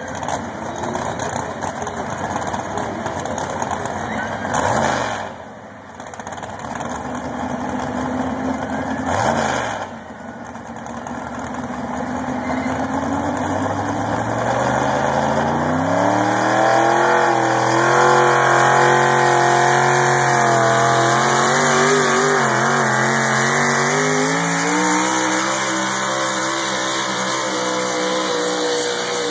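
Pulling tractor's engine revved sharply twice and dropping back, then climbing in pitch and running hard at high revs under load during its pull, the pitch wavering as it goes.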